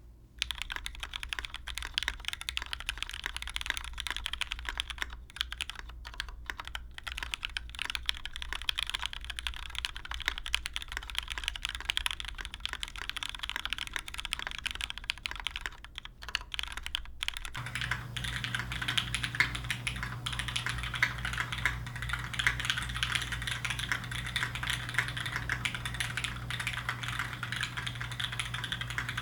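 Fast, continuous typing on a custom mechanical keyboard with lubed Cherry MX Black linear switches in an aluminium plate, under GMK keycaps. A little over halfway through, the sound changes to a different microphone, and a steady low hum comes in under the key clicks.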